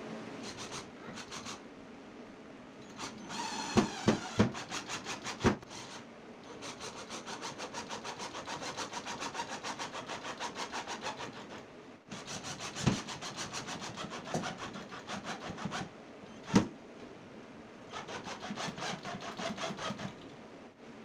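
Hand sawing: fast back-and-forth saw strokes, several a second, in runs broken by short pauses, with a few sharp knocks about four to five seconds in and again past the middle.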